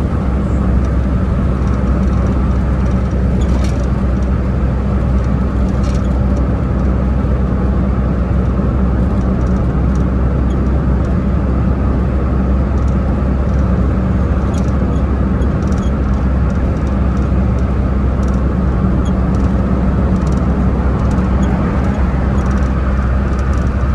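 Turbocharged car cruising at highway speed, heard from inside the cabin: a steady, unchanging engine drone under road noise.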